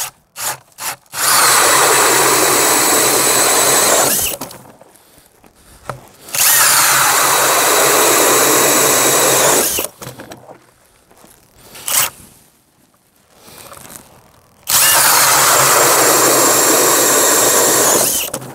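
A DeWalt DCD996 cordless drill spins an 8-inch Eskimo pistol bit ice auger and cuts through the ice, in three steady runs of about three to four seconds each with short pauses between. The auger rips through the ice easily on sharp, brand-new blades.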